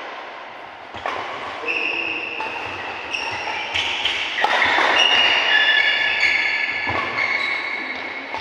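Badminton rally: several sharp hits of rackets on the shuttlecock, with high squealing tones that shift in pitch through the rally.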